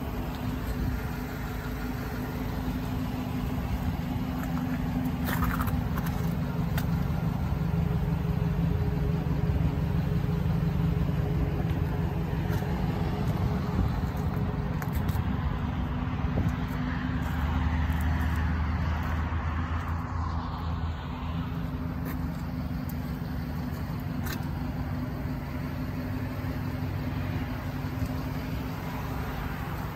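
2012 GMC Sierra pickup's engine idling steadily, heard at the exhaust, with a deeper low hum coming up for a few seconds past the middle.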